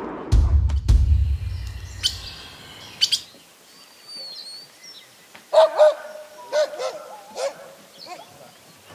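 A heavy low rumble with a couple of knocks in the first two seconds or so gives way to birds calling: short high chirps about four seconds in, then a run of louder calls from about five and a half to seven and a half seconds.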